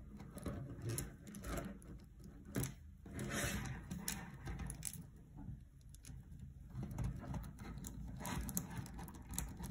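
Plastic pony beads on a kandi cuff clicking and rattling softly as fingers handle the cuff and work fishing line through the beads, in a scatter of short clicks.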